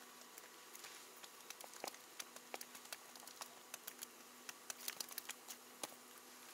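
Faint, irregular light clicks and ticks of hands handling fishing line and tackle, over a faint steady hum.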